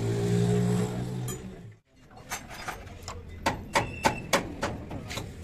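A steady low-pitched drone for under two seconds that cuts off abruptly, then a run of sharp metallic clicks and clinks as tools and parts are handled at a truck's front wheel hub.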